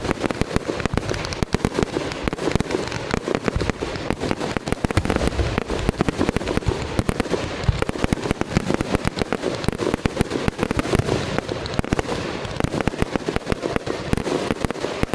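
Fireworks going off without a break: dense, overlapping bangs and crackles, many each second.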